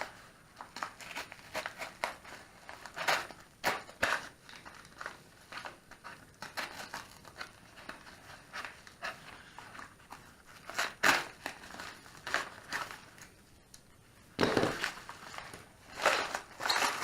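A mail package being opened by hand: irregular crinkling and rustling of packaging with sharp clicks, louder in spells about three, eleven and fifteen seconds in.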